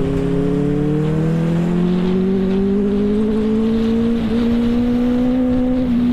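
Benelli TNT 600i's 600 cc inline-four engine pulling under steady acceleration while the bike is ridden, its pitch rising slowly, with a brief dip about four seconds in.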